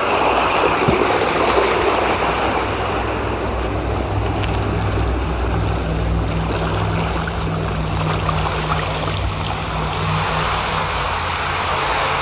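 Water rushing down a water slide around a rider sliding feet first, a steady loud splashing wash. Wind buffets the microphone, with a low rumble underneath.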